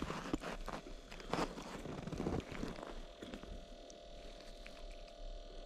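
Jacket fabric rustling and brushing close to the microphone, with small handling clicks, while a freshly caught small walleye is held by the lure and unhooked. The rustling is busiest in the first three seconds and quieter after that.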